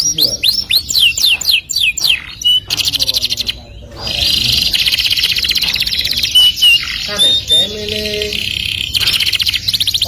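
Domestic canary singing: a run of quick falling whistles, then, after a brief pause about three and a half seconds in, long rapid rolling trills.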